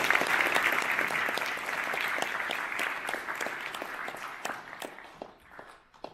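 Audience applauding, loudest at first and gradually dying away, with a few last scattered claps near the end.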